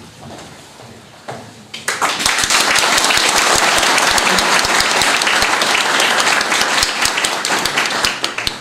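Audience applauding, starting sharply about two seconds in and dying down near the end.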